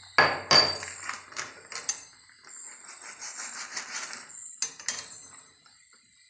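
A plastic pouch of frozen milk being crushed by hand to break it up and tipped into a plastic blender jar: a run of sharp clicks and knocks, a rustling stretch in the middle, then two more sharp knocks.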